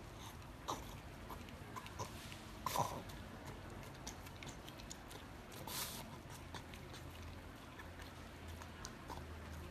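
A pug licking and lapping food from a small bowl: irregular wet smacks and clicks of its tongue and mouth, the loudest about three seconds in.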